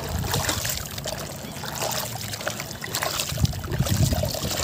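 Hands squeezing and kneading soft wet cement slurry in a bucket of water: squelching and sloshing, with water trickling off, and heavier low sloshes in the second half as the paste is scooped up.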